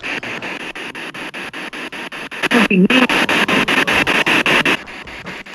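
P-SB7 spirit box sweeping through radio stations: static chopped into even pulses about eight times a second, with a brief snatch of a broadcast voice about two and a half seconds in.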